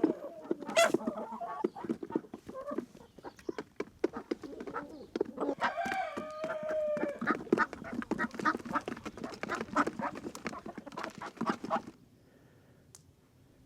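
Chickens clucking and calling in quick, uneven bursts, with a rooster crowing about six seconds in. The sound cuts off suddenly near the end.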